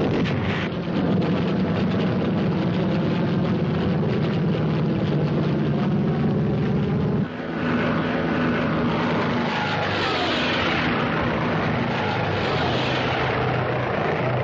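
A motor vehicle's engine running steadily, cut off abruptly about seven seconds in. Then the radial engine of a propeller fighter plane, a Vought F4U Corsair, flies past, its pitch shifting as it goes by.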